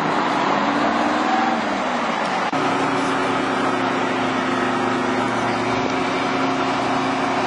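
An engine running steadily, a continuous mechanical hum. After a brief dip about two and a half seconds in, its tone holds constant.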